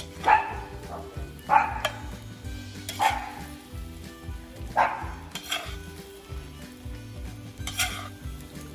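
A metal spoon scraping fried potatoes and meat out of a cast-iron kazan, with about six sharp scrapes and clinks at irregular intervals over the hot food's sizzle.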